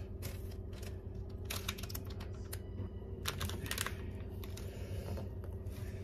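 Kitchen knife slicing a block of cheese and tapping on a wooden cutting board: an irregular scatter of light clicks and knocks, over a steady low hum.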